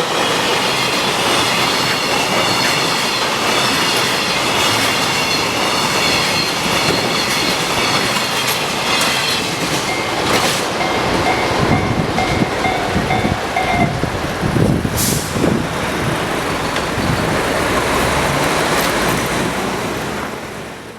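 Freight train wagons rolling past: a steady rumble with wheels knocking over rail joints and a high wavering squeal from the wheels, fading out at the very end.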